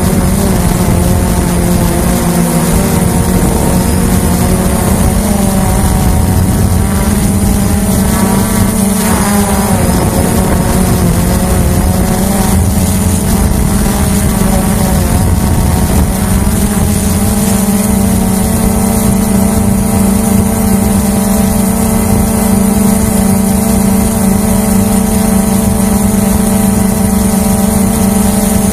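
Hubsan H109S drone's motors and propellers whining steadily in flight, heard from the drone's onboard camera. The pitch wavers up and down briefly about a third of the way through, then settles again.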